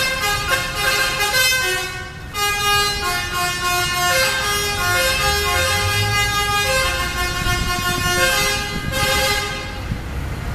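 Indonesian bus telolet horn, a multi-tone musical air horn, playing a tune of held notes that step up and down in pitch. It breaks off briefly about two seconds in, and the tune stops near the end, leaving engine rumble and street noise.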